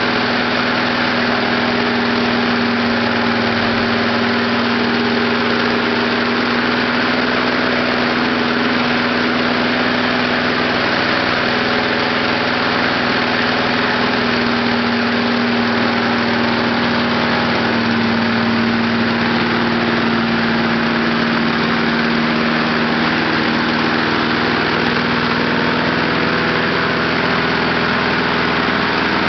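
Lawnmower engine running steadily at a constant speed on a homemade heated-gasoline vapor kit.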